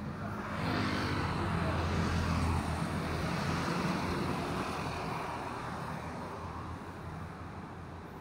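A motor vehicle passing by on the street: engine and tyre noise swells about half a second in, peaks for a couple of seconds, then slowly fades away.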